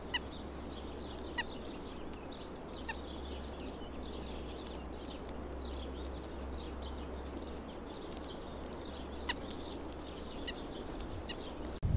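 A few brief, faint high chips from small songbirds (chickadees and a white-breasted nuthatch) scattered over a steady low background rumble.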